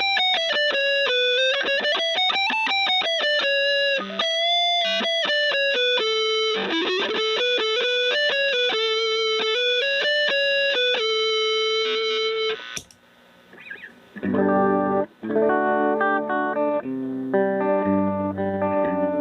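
Electric guitar with three single-coil pickups wired in series, played through distortion: a sustained single-note lead line with bends and vibrato. About 13 seconds in it stops briefly, then lower chords and riffing take over.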